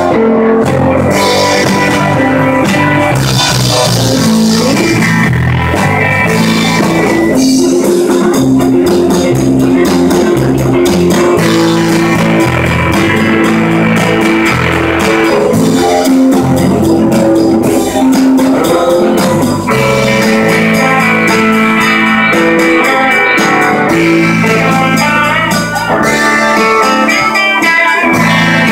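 Live rock band playing a blues-rock number: electric guitars over a drum kit, loud and continuous.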